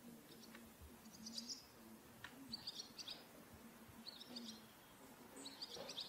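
Faint bird chirps outdoors: four short twittering phrases, roughly one every second and a half.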